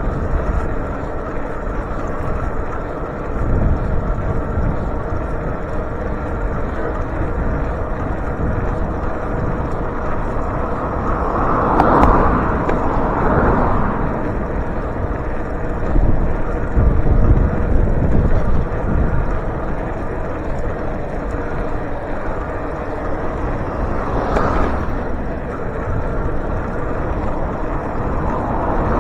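Wind rumbling on the microphone of a moving electric bike, over road traffic, with louder swells of passing vehicles about twelve seconds in and again near twenty-five seconds.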